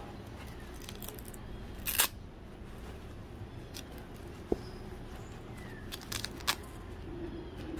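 Handling noise from denim riding jeans being turned over and held open: a few sharp clicks and taps, loudest about two seconds in, with another near the middle and a small cluster about six seconds in, over a steady low hum.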